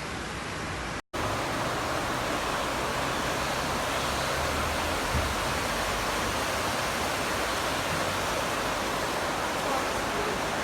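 Steady rushing of floodwater, one even wash of noise with no separate events. It breaks off for an instant about a second in where one clip cuts to the next, then runs on slightly louder.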